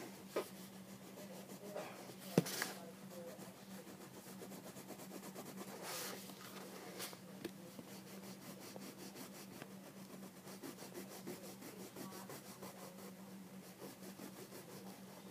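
Marker rubbing and scratching on paper in short drawing strokes, with a few light taps, the sharpest about two seconds in, over a faint steady hum.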